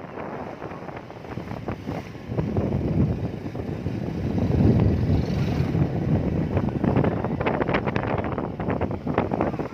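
Wind buffeting the microphone: an irregular low rumble that swells through the middle, with crackles near the end.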